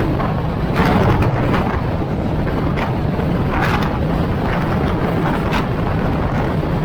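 Steady low rumble of a car driving along the road, with gusts of wind buffeting the microphone, the strongest about a second in and near the middle.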